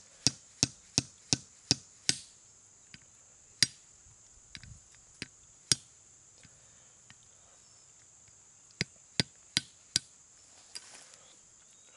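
The head of a tomahawk tapping a roasted hickory nut held on a stone to crack its hard shell. There is a quick run of sharp knocks, about three a second, over the first two seconds, then a few single blows, and another short run of four knocks near the end. A steady high insect buzz continues underneath.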